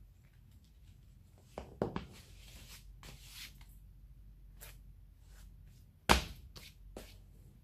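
Leather lace-up shoes being laced and tied by hand: rustling and drawing of the laces through the eyelets, with small knocks of shoe handling and a sharp knock about six seconds in, the loudest sound.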